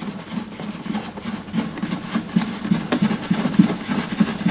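Handling noise from the wooden SquareOff chessboard as it is tilted and the black lock disc on its underside is twisted anticlockwise: irregular rubbing with a few light clicks and knocks.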